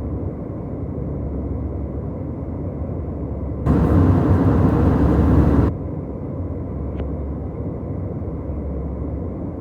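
Airliner cabin noise: the steady low rumble of engines and airflow heard from inside the plane. About a third of the way in it turns louder and brighter for about two seconds, starting and stopping abruptly.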